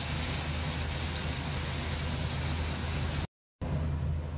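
Beef liver and onions frying in a wok, a steady sizzle over a low steady hum. The sound cuts off abruptly about three seconds in, then only the low hum returns, with less hiss.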